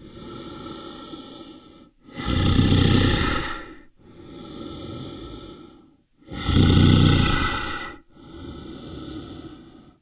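Polar bear growls: two loud rough growls about four seconds apart, each around two seconds long, with a quieter breathy rasp before, between and after them. Each growl and rasp repeats the same pattern, like a looped recording.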